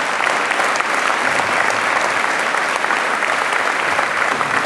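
Audience applauding: steady, dense clapping from a seated crowd.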